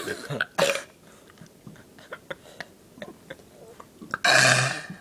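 Deliberate loud belching: a short burp about half a second in, then a longer, low-pitched belch lasting most of a second, starting just after four seconds in.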